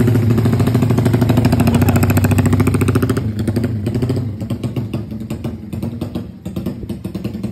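Custom Honda CB motorcycle engine pulling away under throttle, a loud pulsing exhaust note that fades after about three seconds as the bike rides off.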